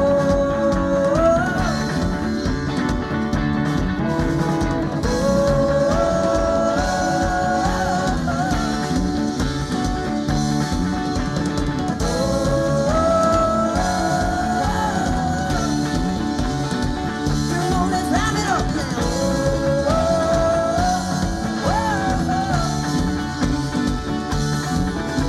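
Indie pop band playing live: drum kit and bass under a melodic lead line that climbs in steps and repeats its phrase about every four seconds.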